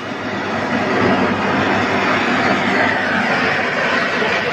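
Two blower-fed diesel burners firing together, giving a loud, steady rushing noise of forced-air flame and fan.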